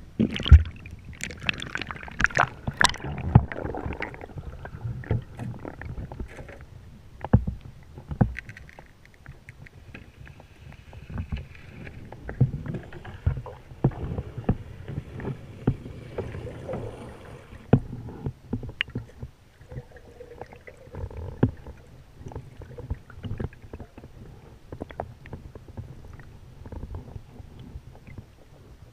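Canoe on the water heard through a camera dipped below the surface beside the hull: muffled sloshing and gurgling over a low rumble, with irregular knocks and clunks. The splashing is louder in the first few seconds.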